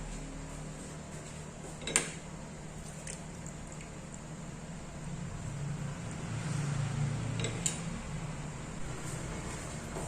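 A utensil knocking against a cooking pot: one sharp clink about two seconds in and a few lighter ones later, as the chicken curry is stirred. Under it runs a steady low hum.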